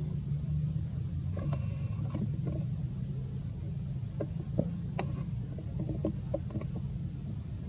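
A steady low rumble like an engine running, with scattered faint clicks and taps.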